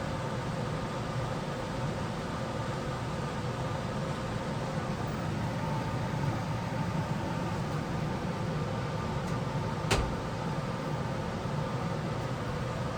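Johnson Controls sealed-combustion furnace running with a steady whir of air and a faint constant hum, with one sharp click about ten seconds in.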